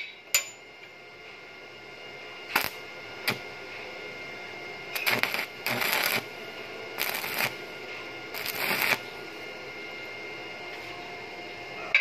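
Electric arc welding on the end of a steel pin, crackling in four short bursts of about half a second each between roughly five and nine seconds in. There is a sharp metal tap near the start and two brief clicks a few seconds in.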